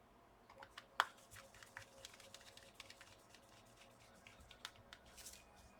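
Faint, scattered clicks and ticks of a small screwdriver and screws being fitted into a laptop's heatsink cooler, with one sharper click about a second in.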